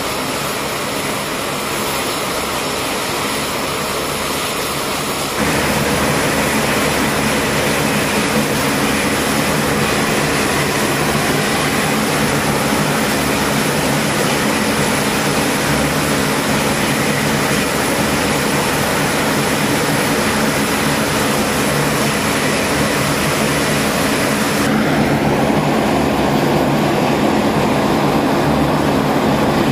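Turboprop engines of a C-130-type transport aircraft running on the ground in a steady, loud drone. The tone shifts abruptly twice, about five seconds in and near the end.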